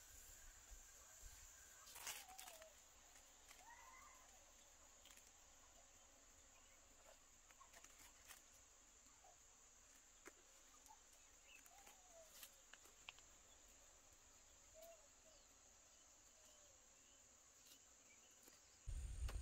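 Near silence: a steady high insect drone with a few faint short chirps and small clicks. A sudden low rumble starts near the end.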